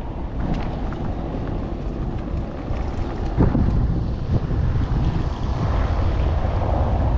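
Wind buffeting the microphone: a steady low rumble, with a couple of stronger gusts about three and a half and four and a half seconds in.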